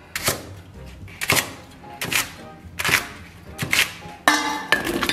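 Chinese cleaver chopping green onion stalks on a thick wooden stump board: single sharp chops about every three-quarters of a second, then a quicker cluster of knocks near the end.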